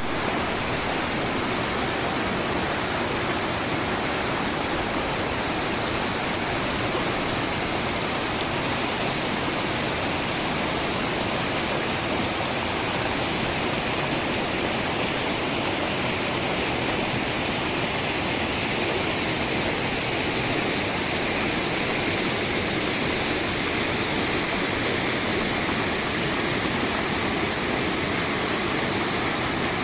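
Waterfall cascading, a steady, even rush of falling water.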